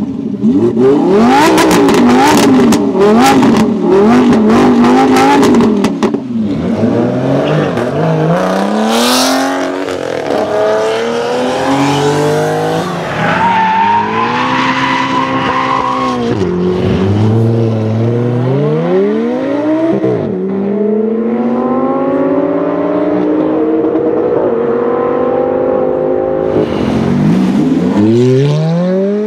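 A Lamborghini Huracán's V10 is revved hard while standing, with its exhaust popping and crackling on each rev. Then a Ferrari 488's twin-turbo V8 accelerates hard through several upshifts, the pitch climbing and dropping back at each shift. Near the end another Ferrari V8 pulls away hard.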